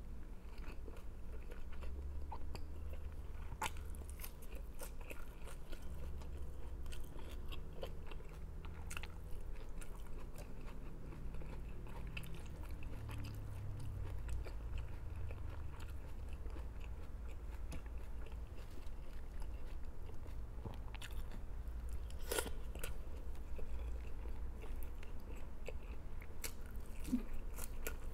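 Close-miked eating sounds: biting and chewing fresh leafy greens and food with a light crunch, with many small mouth clicks and a few sharper taps.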